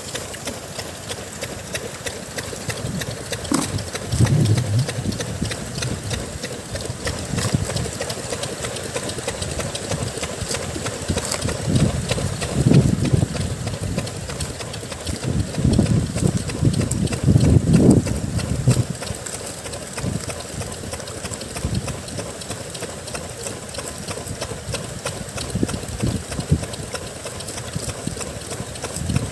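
A motor running steadily, with water sloshing and thumps from live vannamei shrimp being handled in a crate of water, and many short clicks throughout. The sloshing swells about four seconds in, around twelve seconds, and again around sixteen to eighteen seconds.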